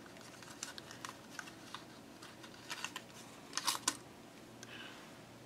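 Faint paper rustling and small clicks as die-cut pieces are pushed out of a sheet of watercolor cardstock, with a louder cluster of clicks about three and a half seconds in.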